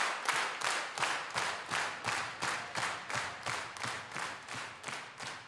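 Many hands clapping together in a steady rhythm, about three claps a second, fading out.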